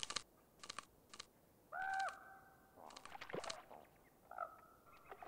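Wolves tearing and chewing at a carcass in shallow water: a few short crunching and ripping sounds. Two short, steady high calls come about two seconds and four and a half seconds in.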